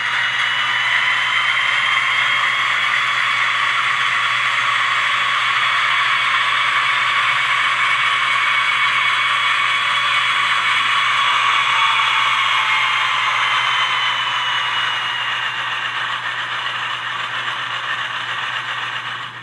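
ESU LokSound sound decoder in an HO-scale ScaleTrains GE AC4400CW playing the dynamic brake sound through the model's onboard speaker: a steady whine from the dynamic brake grid blowers over the running diesel. The whine eases down in pitch and level a little past the middle, and the sound ends abruptly.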